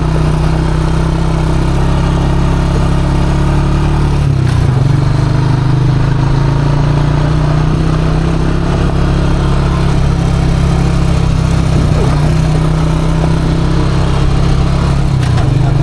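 ATV engine running steadily while riding, its pitch shifting slightly a few times: about four seconds in, about twelve seconds in and near the end.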